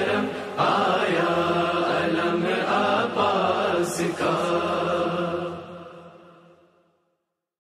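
A nauha, a mournful chanted lament to Abbas, sung by voices, fading out to silence about six seconds in.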